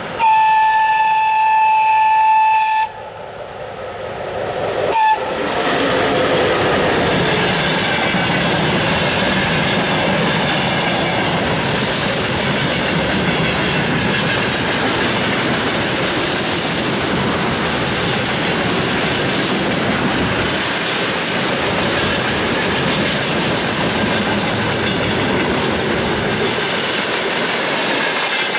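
VL80K electric locomotive sounding its horn in one long steady blast of about two and a half seconds that cuts off sharply, then a brief second toot about five seconds in. After that comes the steady wheel-on-rail noise of a long freight train of tank cars and hopper wagons rolling past.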